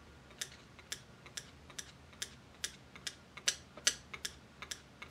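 Small, evenly spaced clicks, a little over two a second, as the fan of a Mabuchi RS-775 brushed DC motor is turned round by hand, stepping its stacked planetary reduction gearbox.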